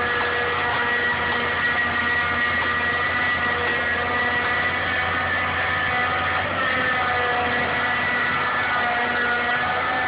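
Caterpillar 225LC excavator's 3208 V8 diesel engine running steadily under the machine's work, with a steady high whine over the engine note.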